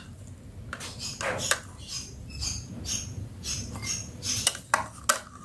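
A metal spoon scooping soaked almonds out of their soaking water in a jug and tipping them into a drinking glass: scattered light clinks and taps of the spoon on the containers and of nuts dropping into the glass, several times over.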